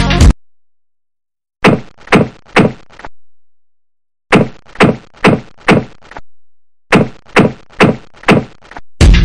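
Whacking thud sound effects in three quick runs, each a handful of hits about a third of a second apart, separated by dead silence. Electronic music cuts off just after the start and comes back near the end.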